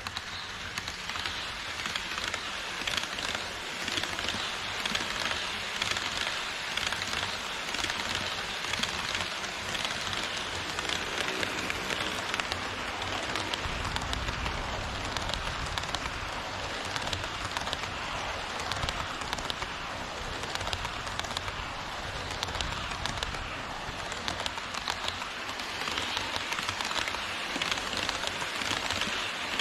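HO-scale model train (Twilight Express coaches) rolling on KATO Unitrack viaduct track: a dense, steady rattling clatter of small metal wheels over the rail. A lower rumble joins in partway through, while the coaches run close by.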